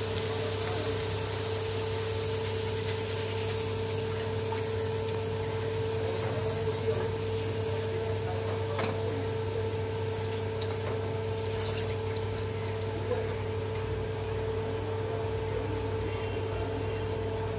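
Poha (flattened rice) sizzling steadily as it deep-fries in hot oil, a continuous hiss over a steady low hum. A few light clicks of the steel strainer against the pan.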